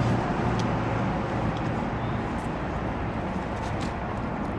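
Steady vehicle and traffic noise, an even rumbling hiss, with a few faint small clicks.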